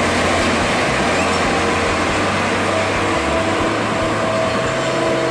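DB Class 111 electric locomotive and its n-coaches running through the station: a steady, loud rail rumble with a low hum, and a faint held tone coming in about halfway through.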